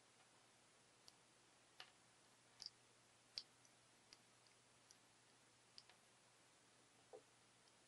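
Near silence broken by about a dozen faint, irregular small clicks: fingers handling a CMOY headphone amplifier circuit board and pressing an op amp chip's pins into its IC socket, with one duller knock near the end.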